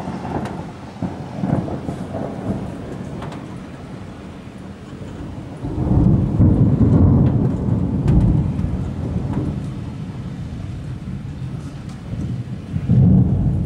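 Thunder rolling in long low rumbles. A first roll comes at the start, a louder one rises about six seconds in and fades slowly, and another rumble swells near the end.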